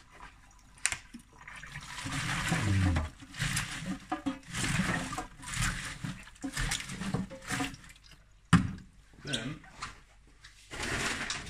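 Wet collard greens being sloshed and worked by hand in a stainless steel sink while vinegar is poured over them: irregular spells of splashing and gurgling water, with a single sharp knock about two-thirds of the way through.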